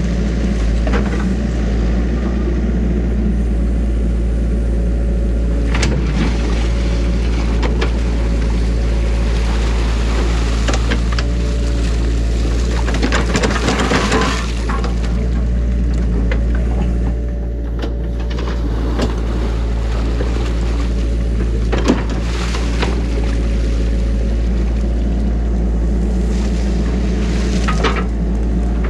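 Compact excavator's diesel engine running steadily while the bucket digs, with bursts of scraping and a few sharp knocks as it works through wet mud and dam debris.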